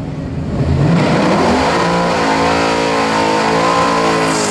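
A drag-race car's engine revving: the pitch climbs over about a second, then holds at high revs, loud and steady.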